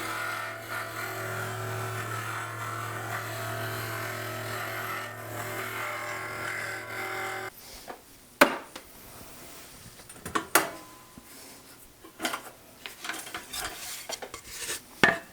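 Electric drill motor running steadily while drilling entrance holes in thin Baltic birch plywood, switching off abruptly about halfway through. After that come scattered light clicks and knocks.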